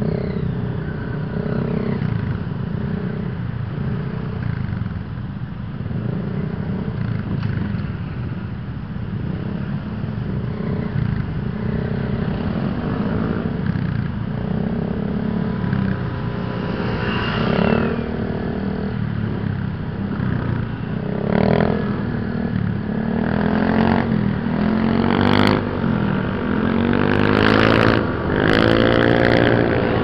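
Riding a Honda Click 125i scooter among a line of motorcycles: steady engine drone with wind and road rush. In the last several seconds the engine note rises and falls several times as the bikes accelerate, with a few sharp clicks near the end.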